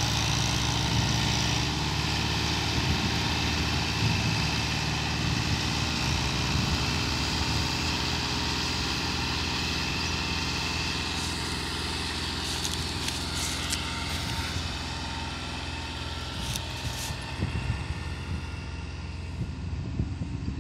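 Diesel tractor engines running steadily under load as two tractors hitched in tandem pull a loaded sugarcane trolley, a low engine drone that grows gradually fainter.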